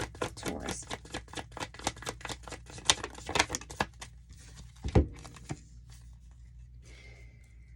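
A deck of tarot cards being shuffled by hand: a fast run of papery clicks for about four seconds, then one loud thump about five seconds in as the deck is knocked or set down.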